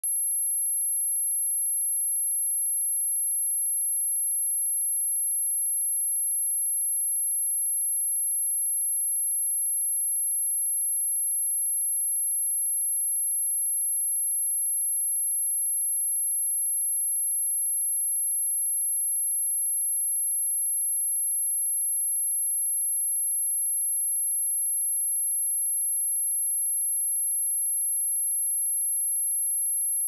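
A steady, high-pitched pure sine tone at 11074 Hz, a speaker test tone, held at one level without a break.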